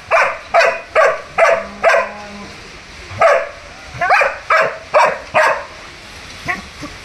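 German Shepherd barking repeatedly: five loud barks about two a second, a pause of about a second, then five more, and one softer bark near the end.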